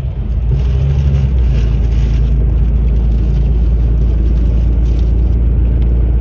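Steady low rumble of a bus at highway speed, heard from inside the cabin: engine drone and road noise, with a faint engine hum near the start.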